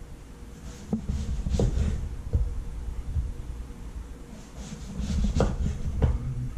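Kitchen handling sounds: a few light knocks with scraping or rustling between them, as things are moved about on a kitchen counter, over a faint steady hum.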